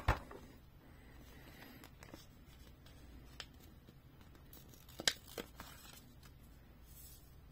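Paper sticker sheet handled and a sticker peeled off its backing, with a few light clicks and taps. The sharpest click comes about five seconds in.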